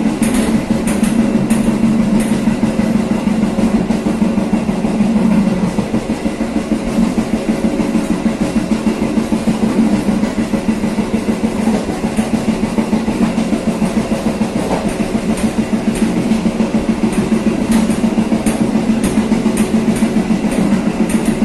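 Passenger train running along the track, heard from the rear of the train: a steady rumble of wheels on rails with a fast, even beat.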